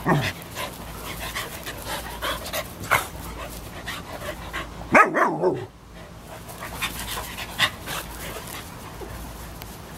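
An American Eskimo Dog and a German Shepherd puppy at rough play, panting and scuffling. There is a short bark at the start and a louder bark, falling in pitch, about halfway through.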